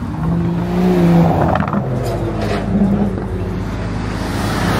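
Cars driving slowly past at close range with their engines running. One engine rises in pitch about a second in, and another sports car's engine grows louder as it approaches near the end.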